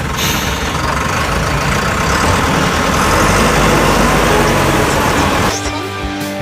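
Heavy vehicle engine running amid road noise. About five and a half seconds in it cuts abruptly to music with held tones.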